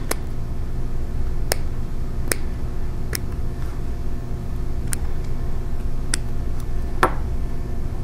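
Scissors snipping the excess copper braid of LMR600 coaxial cable: a series of about seven sharp snips, roughly a second apart, over a steady low hum.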